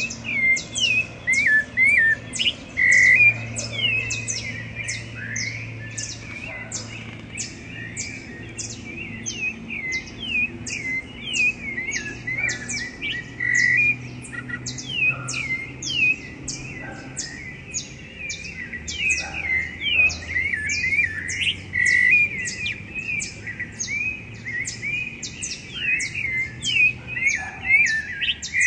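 Rufous-bellied thrushes singing: a continuous run of short, slurred whistled notes and phrases. A high, even ticking about twice a second and a faint low hum run behind them.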